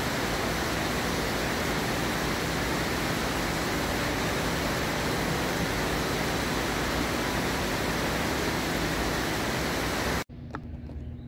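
Loud, steady rushing noise, even across low and high pitches with a faint low hum under it, cut off abruptly about ten seconds in.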